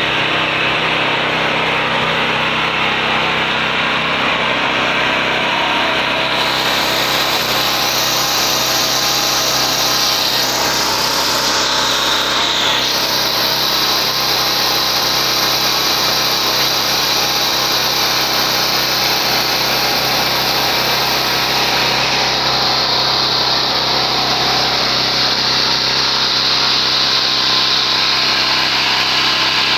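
Predator 4000-watt portable generator's engine running steadily, with a hiss above it that shifts a few times.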